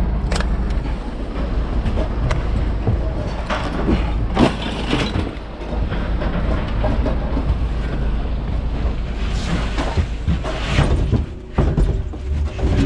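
Scrap metal being unloaded by hand: irregular clanks and knocks as metal parts and drums are shifted and dropped, over a steady low rumble.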